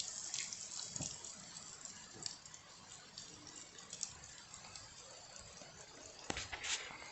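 Calabresa sausage sizzling and crackling in a pan over the cooking fire, with a light clatter about six seconds in.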